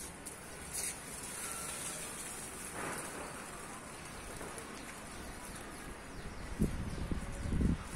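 Swarm of locusts settled on and flying over a rooftop: a steady, even hiss of many wings and bodies, with a few low thumps near the end.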